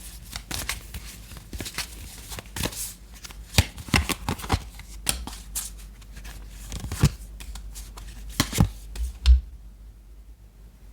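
Deck of tarot cards being shuffled by hand: a busy run of quick card slaps and clicks that stops about nine seconds in.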